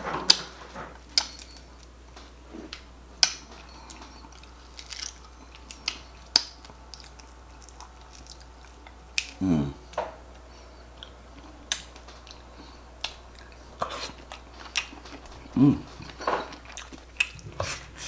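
Close-miked eating: chewing with scattered sharp clicks and cracks from jumbo shrimp shells being peeled. Twice a short falling hum from the eater.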